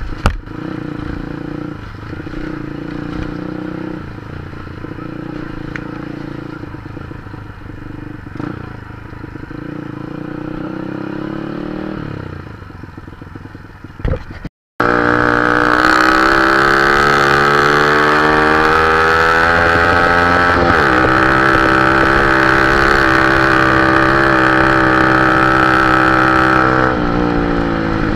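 Honda Dream 100cc motorcycle's small single-cylinder four-stroke engine running under way. About halfway through, the sound cuts out for an instant and comes back louder, its pitch climbing steadily as the bike speeds up, dipping briefly, then holding steady before easing off near the end.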